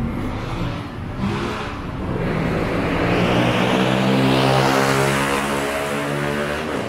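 A motor vehicle's engine passing close by on the street. It grows louder to a peak about four seconds in, then eases off.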